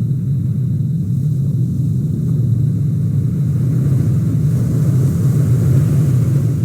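Steady low rumble of a car driving, road and engine noise with no change in pace.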